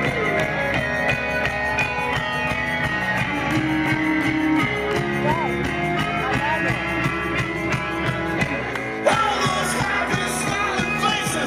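Live rock band playing through a festival PA: electric guitar, drums and a singer's voice. About nine seconds in a sudden loud hit comes, and the band plays brighter and louder after it.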